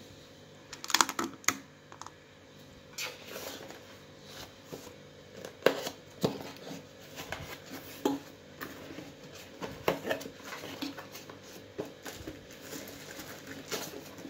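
Hands opening a cardboard box and handling the packing inside: irregular scrapes, taps and crinkles of cardboard and plastic wrap, with the sharpest clatter about a second in.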